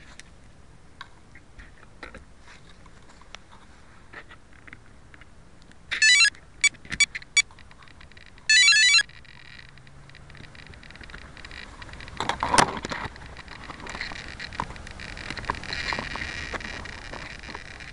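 Electronic beeps from a small RC helicopter's electronics: two short bursts of stacked tones with four single beeps between them, like a speed controller arming. About twelve seconds in comes a sharp knock, then a hiss and whine that slowly grow louder, like the rotor starting to spin up.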